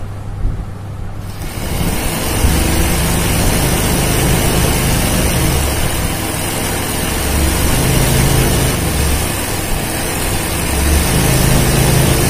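Electric embroidery machine running fast as it sews satin-stitch petals into hooped fabric. It picks up speed about a second and a half in, then surges and eases several times as the stitching goes on.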